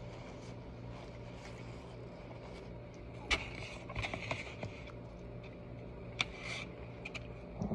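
Quiet chewing of a breakfast burrito, with faint mouth clicks and a few short rustles of the paper wrapper and napkin, over a steady low room hum.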